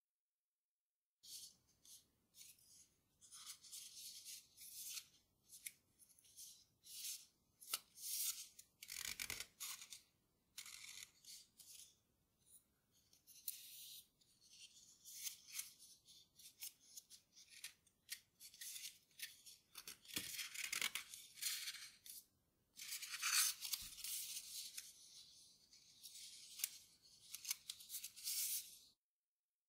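A sheet of grainy origami paper rustling and crinkling as it is handled, folded and creased by hand, in irregular crisp bursts that start about a second in.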